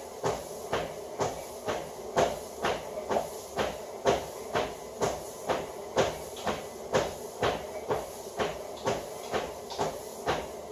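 Steady footfalls on a treadmill belt at a brisk walk, a little over two steps a second, over the continuous running of the treadmill's motor and belt.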